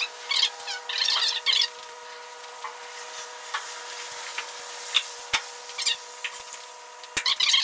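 Scattered clicks, light knocks and short scraping rattles as a steel tilt dolly and chain hoist are handled, over a steady faint hum.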